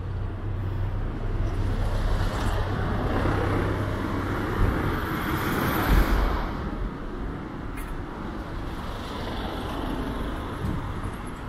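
Road traffic: cars passing along the street, swelling loudest about two and six seconds in, then quieter toward the end.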